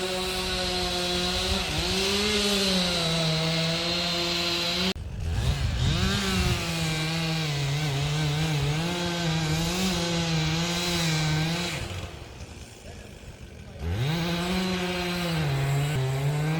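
Two-stroke chainsaw running at high revs, its pitch wavering up and down. It breaks off suddenly about five seconds in and picks up again, then drops away for about two seconds near the end before revving back up.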